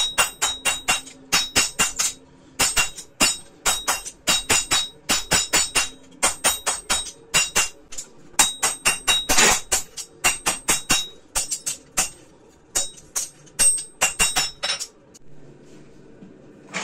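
Hammer forging a steel gouge blank on an anvil: quick runs of ringing metal-on-metal blows, about four a second with short pauses between runs. The blows stop near the end.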